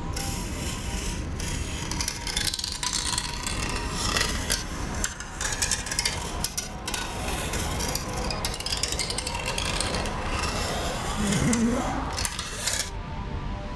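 Bic Cristal ballpoint pen scratching over paper in continuous looping scribbles, a loud, uneven rasp that cuts off near the end.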